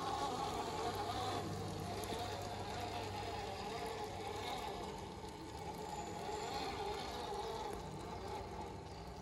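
Electric motors and geared drivetrains of radio-controlled scale crawlers, including a Traxxas TRX-4, whining steadily as they drive, the pitch wavering with the throttle.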